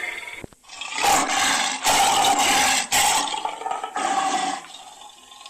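Custom-made Asian dragon roar sound effect: a harsh, noisy roar in four or five bursts over about three and a half seconds, starting after a short click and dropping away near the end.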